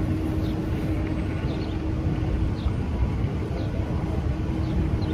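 Steady low rumble of city traffic, with faint short high chirps about once a second over it.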